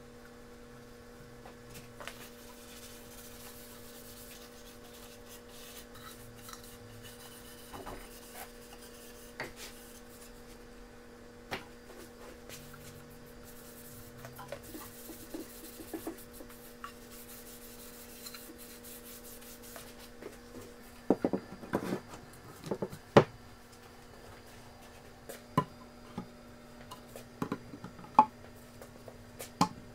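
A cloth rubbing oil finish into pine boards, a soft scrubbing over a faint steady hum. About two-thirds of the way through come a run of sharp wooden knocks and clicks as hand saws are set into a wooden rack.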